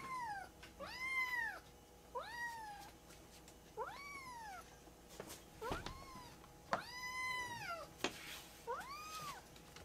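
Young orange-and-white kitten meowing repeatedly, about six high calls that each rise and then fall in pitch. A few short taps come between the calls.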